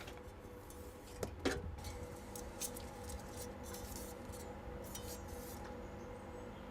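Light clicks and small knocks of hardware being handled, the sharpest about a second and a half in, over a steady faint electrical hum.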